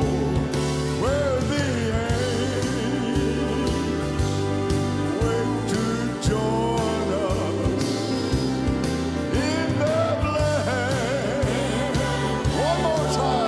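Live country gospel music: piano, acoustic guitars and drums keeping a steady beat, with singers holding long wavering notes over it.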